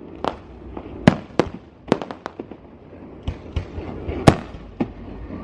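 A fireworks display going off: a string of sharp bangs and crackles at an uneven pace, several each second, over a low rumble. The loudest bang comes a little after four seconds in.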